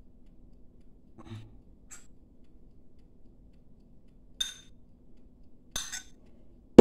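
A metal spoon clinking against a ceramic bowl while scooping grated cheese: four short clinks, a second or more apart, over a faint steady room hum.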